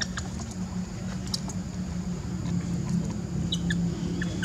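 Outdoor forest ambience: scattered brief high chirps and clicks, typical of small birds, over a steady low hum.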